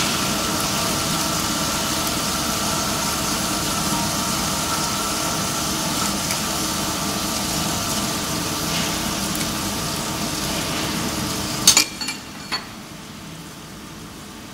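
Metal-cutting bandsaw running, its blade cutting through a thick steel pipe with a steady whine and hiss. About twelve seconds in, a few sharp metallic clicks come and the saw sound drops away, typical of the blade breaking through at the end of the cut.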